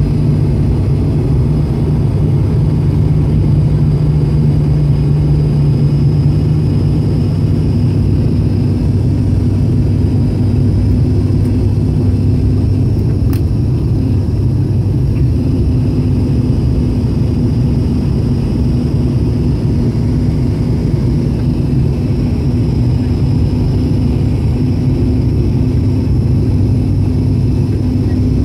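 Cabin noise of an ATR 72 turboprop airliner on approach to land: the engines and propellers make a loud, steady drone with low humming tones. One of the hum tones shifts a little about seven seconds in.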